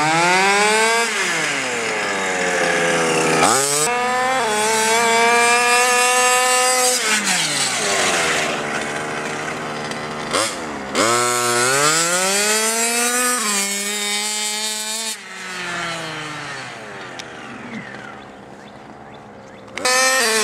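1/5-scale RC car's two-stroke engine revving up and down as the car is driven, its high buzzing pitch rising and falling several times. For the last few seconds it drops back lower and quieter before picking up again.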